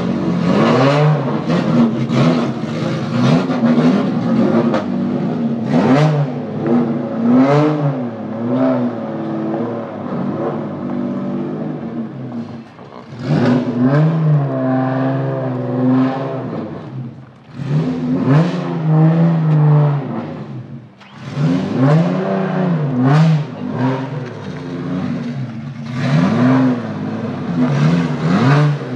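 Porsche 911 flat-six with a custom exhaust (quick-release muffler and test pipe) being revved over and over, the pitch climbing and falling with each throttle blip and settling back toward idle between them, with a few short lulls.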